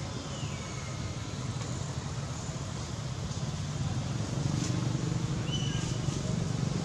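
Steady low mechanical rumble that grows louder about four seconds in, with a few faint high chirps over it, one gliding down early and a short held one about five and a half seconds in.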